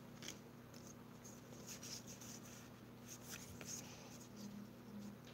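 Faint rustling and soft ticks of Pokémon trading cards being shuffled and slid against each other in the hands, over a low steady hum.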